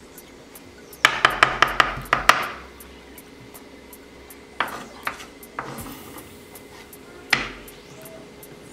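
Chef's knife chopping fresh coriander on a wooden cutting board: a quick run of about seven chops about a second in, then a few scattered chops and one more knock near the end.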